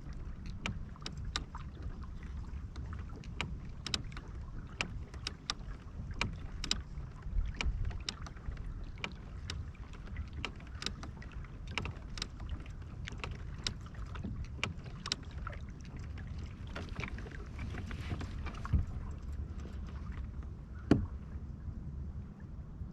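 Kayak on the water: irregular sharp clicks and knocks from the boat and gear over a low wind rumble on the microphone, with one louder knock near the end.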